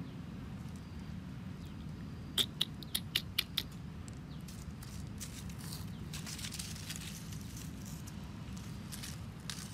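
Dry fallen leaves and twigs crackling and rustling as a stick is poked and dragged through them, with a quick run of about six sharp crackles a few seconds in and lighter crackles later, over a steady low background hum.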